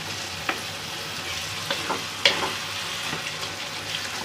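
Tomato-onion chutney sizzling in a pan as it is stirred and fried down to cook off its water, with a spoon scraping and tapping the pan several times, the sharpest tap a bit over two seconds in.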